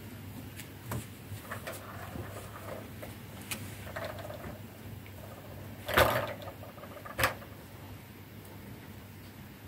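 Scattered light knocks and scuffs of small things on a desk, with the loudest, a short scrape, about six seconds in and a sharper knock about a second after it.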